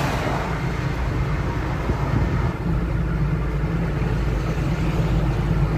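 Steady low rumble of car engine and tyre noise on the road, with no distinct events.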